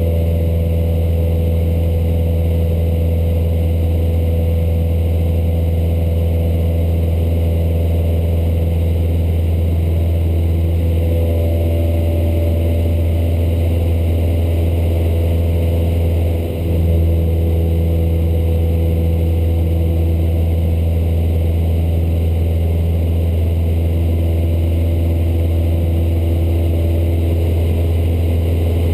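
Cessna 152's four-cylinder Lycoming O-235 engine and propeller running steadily in flight, a loud even drone heard inside the cabin. There is a brief dip in level a little past halfway.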